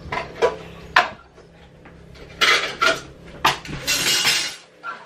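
Dishes and cutlery clinking and knocking in a kitchen: a string of sharp clinks, with two short noisy swishes about two and a half and four seconds in.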